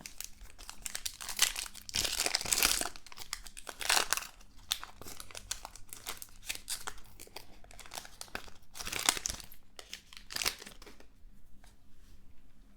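Crinkling and tearing of a trading card pack's wrapper as it is torn open, with rustling and cracking of the wrapper handled in the hands in a series of irregular swishes.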